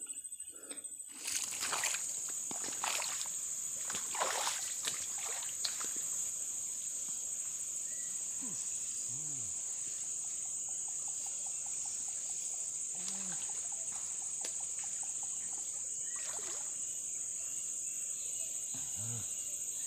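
Water splashing and sloshing in the shallows as a hooked snakehead (haruan) is fought and landed, with a cluster of splashes in the first few seconds and a few more later. Behind it runs a steady high insect drone.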